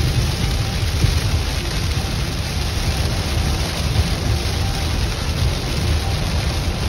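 Heavy rain hitting a car's roof and windshield, heard from inside the cabin, over the steady low rumble of tyres on a wet highway.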